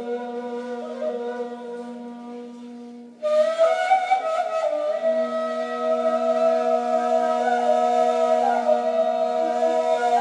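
Two neys, end-blown reed flutes, playing together: a steady low held note, joined about three seconds in by a louder, breathy higher phrase that wavers in pitch.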